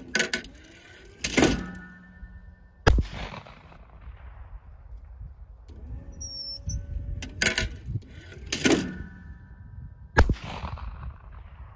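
Two shotgun shots from a CZ Teal 28 gauge over-and-under, about seven seconds apart. Each shot comes about a second and a half after a loud clatter with a brief ringing tone.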